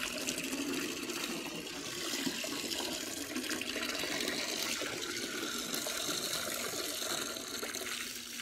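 Water running steadily from a tap into a cooler as it fills.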